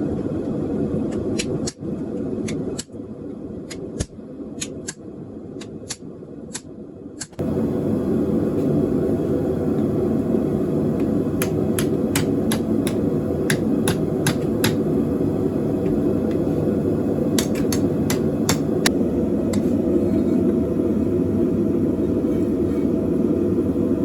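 Blacksmith's hammer striking hot steel bar on an anvil, in quick runs of blows, two or three a second, with pauses between runs. From a few seconds in, a steady low rumble runs under the blows.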